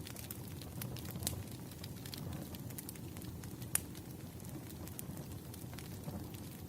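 Burning firewood crackling: scattered sharp pops and snaps over a low, steady rumble, with one louder pop nearly four seconds in.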